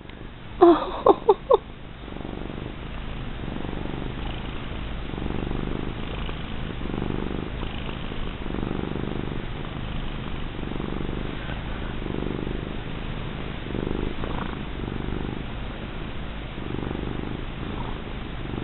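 Domestic cat purring steadily while being stroked, the purr swelling and easing about every second and a half to two seconds with its breathing.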